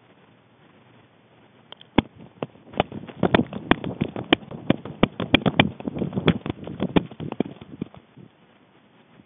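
Cat-worn collar camera knocking and rubbing as the cat moves: an irregular run of sharp clicks and thumps with scuffing between them, starting about two seconds in and stopping near the end.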